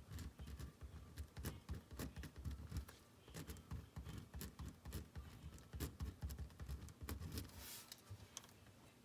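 Writing and drawing on a page: a quick irregular run of small scratches and taps with soft knocks underneath, ending in a slightly longer scratch.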